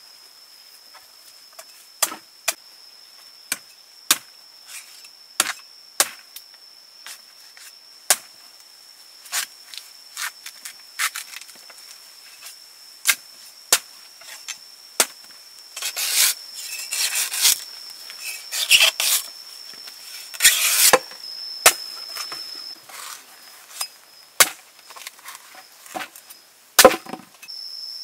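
A large knife chopping into the husk of a young green coconut on a wooden board: sharp single strikes every second or so, with a run of longer cutting and shaving strokes in the middle. A steady high insect trill sounds behind.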